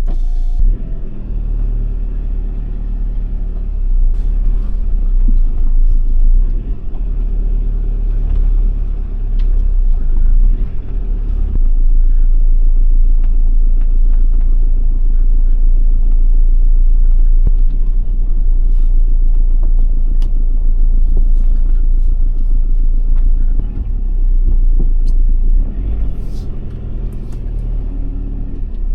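Car engine running with a steady low rumble as the vehicle reverses slowly along a rough forest track, with scattered small knocks and clicks.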